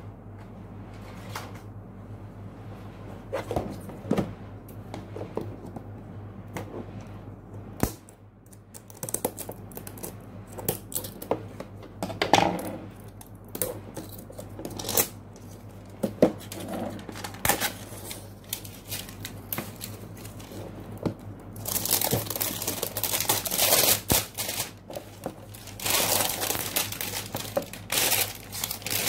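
Cardboard plastic-model kit box being handled and opened, with scattered knocks and rustles, then a plastic bag of kit parts crinkling and rustling loudly over the last several seconds.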